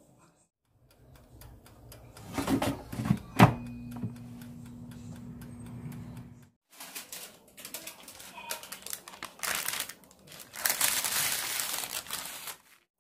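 Baking paper crinkling as it is peeled off a freshly baked bread pizza, loudest in the last few seconds. Earlier there are scattered clicks, one sharp knock and a short steady hum with a held tone.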